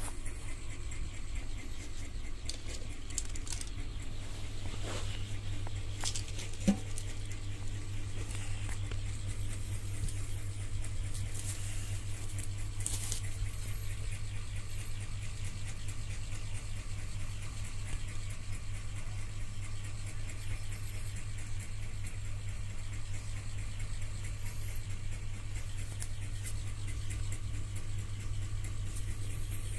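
A steady low hum, with faint scratching and light clicks as a cardboard model-kit box is handled. A single sharper click comes about seven seconds in.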